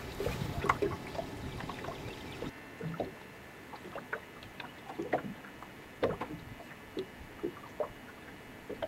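Lake water lapping and slapping against the hull of a small fishing boat, with irregular little splashes and gurgles.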